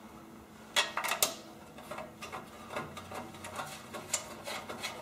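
Bolts being fitted back into the metal engine cover of a Briggs & Stratton small engine: light metallic clinks and clicks, with a quick cluster of louder ones about a second in, then scattered softer ticks.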